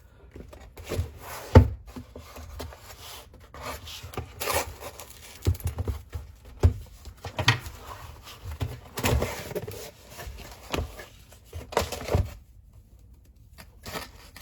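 Product packaging being handled and opened: irregular rustling, scraping and tearing with short knocks, the sharpest knock about one and a half seconds in.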